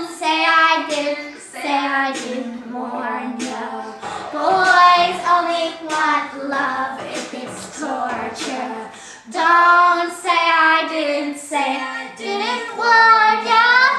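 A young girl singing a pop song, her voice moving through held and rising notes in short phrases.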